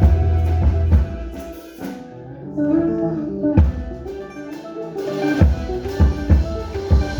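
A Peruvian folk ensemble playing instrumental music with guitar and percussion. The full band thins to a quieter melodic passage about a second in, then comes back with sharp drum hits.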